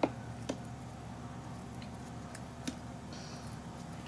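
Snips cutting braided stainless steel hose sleeve: a sharp snip right at the start, a softer one half a second later and another near the end, with faint ticks of wire strands between.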